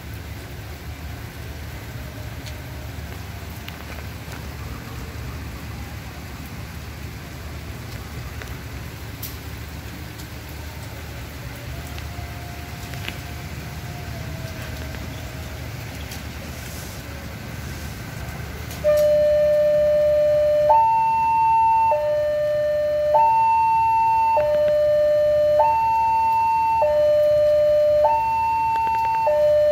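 Railway level-crossing warning siren starting about two-thirds of the way in, alternating a lower and a higher tone, each held a little over a second: the signal that a train is approaching and the barriers are closing. Before it, a steady low rumble.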